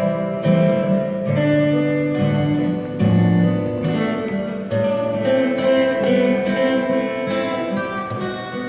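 Acoustic guitars played together in a group, strummed chords under long held melody notes, as an instrumental introduction before the singing.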